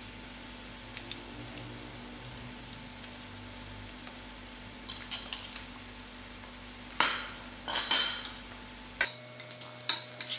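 Onions and curry leaves frying quietly in oil in a stainless steel pot as mixed masala goes in. Sharp clinks of a metal spoon on the plate and the pot come a few at a time, the loudest past the middle, then the spoon stirring in the pot near the end.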